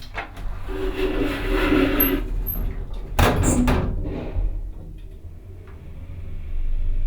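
Old elevator's door being shut: a scraping rattle for a second or so, then a sharp metallic clang about three seconds in, over a steady low hum.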